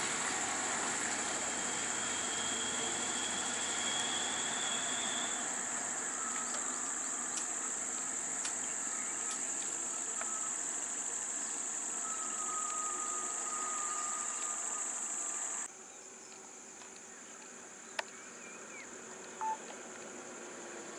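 Steady high-pitched drone of insects in roadside forest, with faint vehicle engine sound underneath. The drone cuts off suddenly about three-quarters of the way through, leaving quieter road ambience with a low engine hum and two short clicks.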